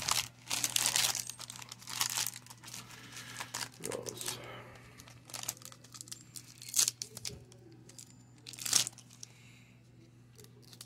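Foil wrapper of a baseball card pack crinkling and tearing as it is opened by hand. The rustles come in irregular bursts, with sharp loud ones at about 7 and 9 seconds in.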